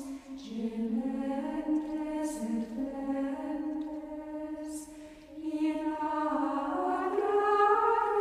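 Background music: voices singing a slow chant, holding long notes that step up and down in pitch, with a short pause between phrases about five seconds in.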